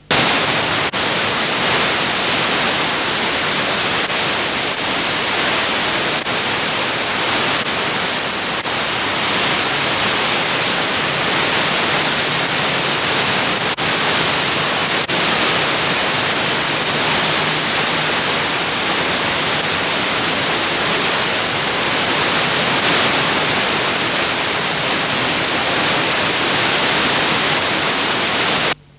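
Loud steady hiss of static on an analogue TV channel's sound, with a few faint clicks. It cuts in suddenly and stops abruptly near the end. It is the sign of the station's microwave studio-to-transmitter link dropping out in a storm, so that noise goes to air in place of programme audio.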